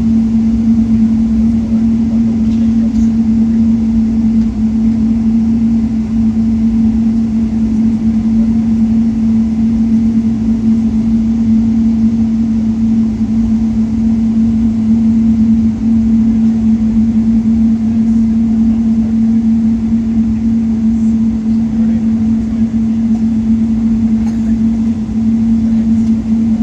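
Cabin noise of a Boeing 777-300 taxiing after landing: a steady hum with one strong, steady low tone over a constant rumble from the engines at idle and the airframe rolling on the taxiway.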